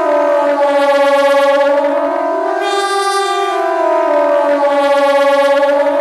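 Kockum Sonics KTG 10 siren sounding the Swiss general alarm: a loud wail that glides slowly down and up. It bottoms out about a second in and again near five seconds, and peaks about three seconds in.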